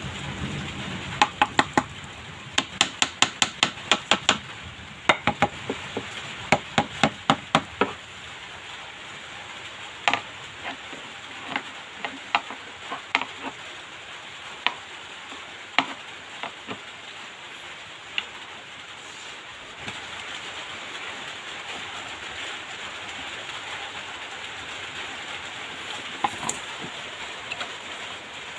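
Fingers tapping and handling a home theatre speaker box: fast runs of sharp taps, several a second, then single taps now and then, over a steady hiss.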